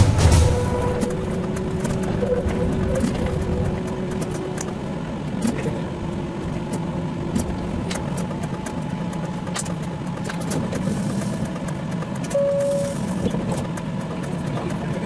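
Tram running along street track: a steady running noise with many short clicks, amid road traffic.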